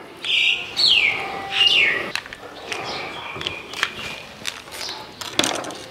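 A bird calls with three loud falling whistled notes in the first two seconds, then fainter calls. Under it are soft wet clicks and squelches from hands kneading thick batter in a metal bowl.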